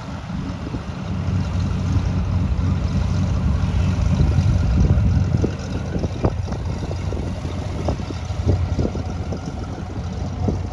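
Cessna 182 Skylane's piston engine and propeller running at taxi power, a steady low drone that swells louder for a few seconds and eases back about five and a half seconds in.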